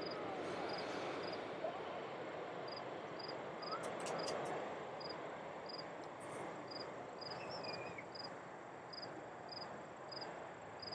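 Crickets chirping in short, even pulses, about two a second, over a steady background rumble.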